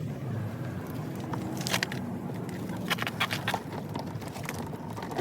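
Clicks and scrapes of plastic door-trim parts being handled as the interior door handle assembly is worked loose from a car door, with a cluster of sharp clicks about two seconds in and another about three seconds in, over a low steady hum.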